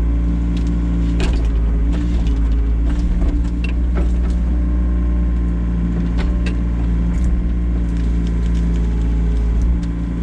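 Excavator engine running steadily under load while digging, with scattered clanks and knocks from the bucket and hydraulics working in the soil.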